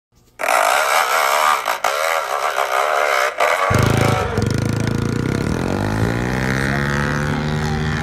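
An intro sound effect plays under the opening title graphic. About three and a half seconds in, it cuts to a child's small dirt bike engine revving at the start of a hillclimb, its pitch dropping and then holding steady.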